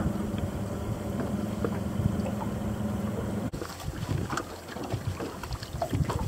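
A steady low hum that cuts off abruptly about three and a half seconds in, followed by wind buffeting the microphone and irregular water sounds around a small fishing boat.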